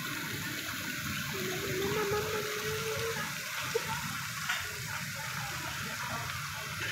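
Steady hissing wash of a busy open-air restaurant courtyard, sounding like running water. A faint held tone rises slightly in pitch about a second in and fades out after about two seconds.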